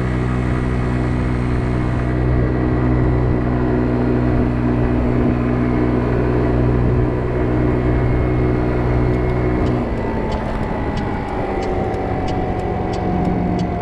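50cc scooter engine running at a steady cruising speed. About ten seconds in the steady note breaks off as the throttle eases, leaving a whine that falls slowly in pitch, with a light ticking about three times a second near the end.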